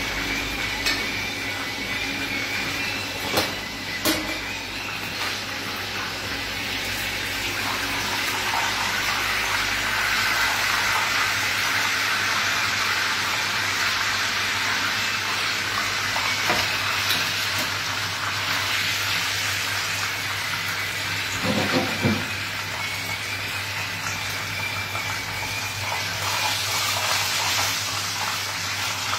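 Oil sizzling in frying pans of breaded chicken cutlets and mushrooms, a steady hiss that swells about eight seconds in. A few sharp knocks of a utensil against a pan come through it.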